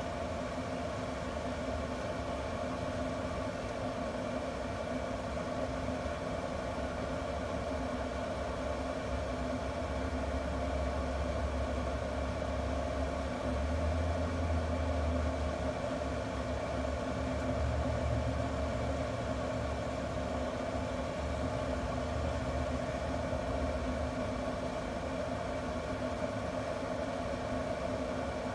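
Camp Chef pellet grill running under its Savannah Stoker controller: a steady fan hum. A low rumble swells about ten seconds in and dies down again after about twenty-four seconds.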